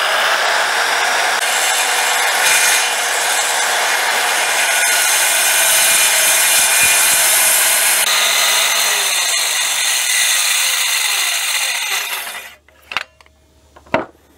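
Corded circular saw cutting along a wooden rafter at a 26-degree bevel, running under load for about twelve seconds, then winding down.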